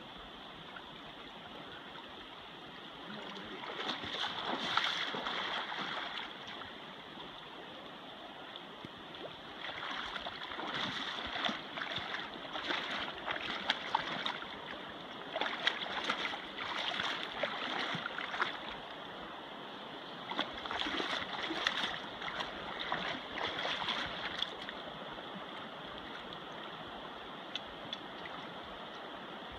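Steady rush of a flowing river, broken by several louder stretches of rough, scratchy noise a few seconds long.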